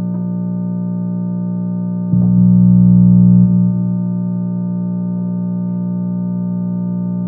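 Electronic drone of many steady sustained tones stacked together, strongest in the low range. About two seconds in the low tones step up louder for about a second and a half, then drop back, with faint clicks at the changes.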